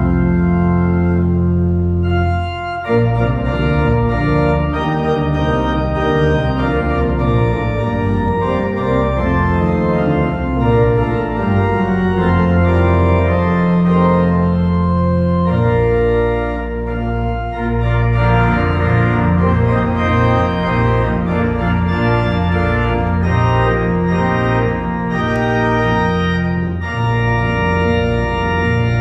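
Church organ playing a closing voluntary at full volume: sustained chords over a moving bass line, changing chord with a brief dip about two and a half seconds in and again about halfway through.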